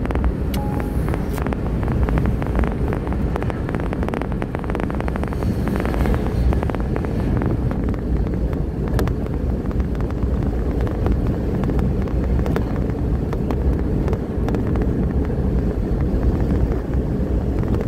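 Steady road and engine rumble of a moving car, heard from inside the cabin, with scattered light clicks and rattles during roughly the first half.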